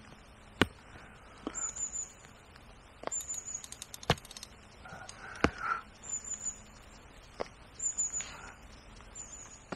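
Irregular sharp taps of raindrops close to the microphone, with a small bird's short, high, thin calls repeating every second or two.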